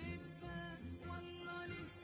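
Background music: a melody over a steady low pulse.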